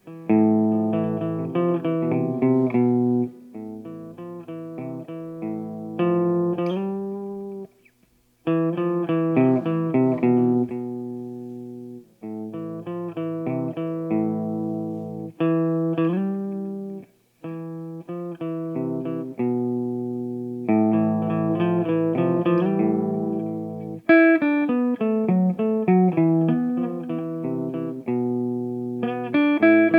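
Clean electric guitar, a Kramer played through a Marshall cabinet: ringing picked chords and short phrases, breaking off briefly three times.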